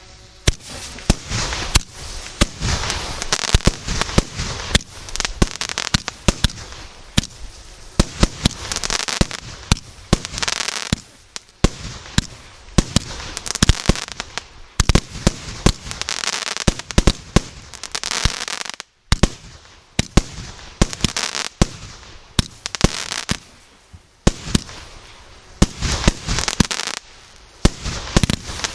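Multi-shot consumer firework battery (cake) firing: a rapid run of sharp bangs, with noisy bursts swelling between them in waves every second or two. The sound drops out for a moment about two-thirds of the way through.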